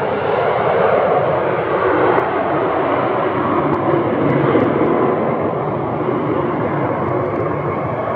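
United Airlines Boeing 757's twin jet engines at takeoff power as it rolls down the runway: a loud, steady roar, with a thin whine coming up near the end.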